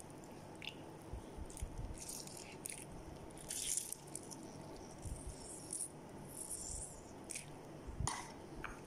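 A lemon half squeezed by hand over a bowl of spice marinade: faint, irregular wet crackles and squelches of the rind and pulp. A single small knock about eight seconds in.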